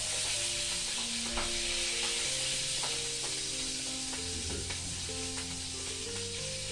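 Food sizzling as it fries in a pan on a gas stove, a steady hiss, with a few clinks of a utensil against the pan. A melody plays softly underneath.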